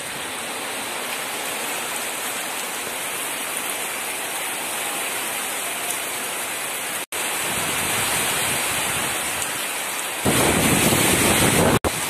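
Heavy tropical rain pouring steadily, with a louder, deeper stretch near the end. The sound cuts out for an instant twice.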